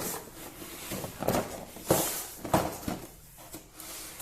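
Handling noise: about five short knocks and rustles, spaced irregularly, as objects are moved about by hand.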